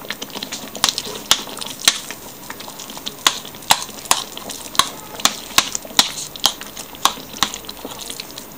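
A metal spoon stirring raw ground chicken into simmering tomato sauce in a stainless steel pan, clinking against the pan about twice a second over the sauce's low sizzle.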